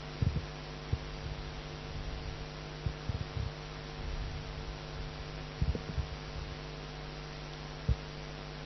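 Steady electrical hum, with a few short, faint low thumps scattered through it.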